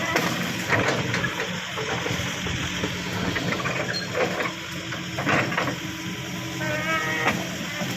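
Backhoe engine running steadily while the machine works, with several sharp knocks and cracks and a brief squeal near the end.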